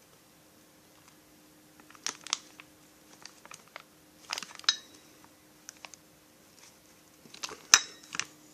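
Loose chainsaw kit parts being handled: a few scattered sharp clicks and light knocks, the sharpest near the end, over a faint steady hum.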